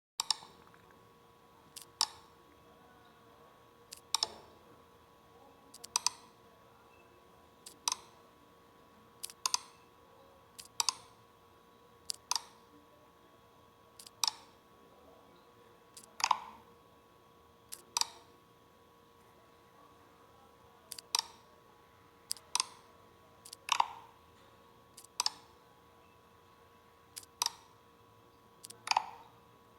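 Computer mouse button clicking, one sharp click about every one and a half to two seconds, a few of them coming as quick pairs.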